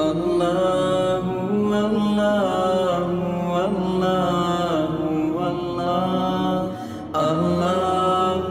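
Background vocal music: a chant-like sung melody with long held, wavering notes, breaking off briefly near the end before going on.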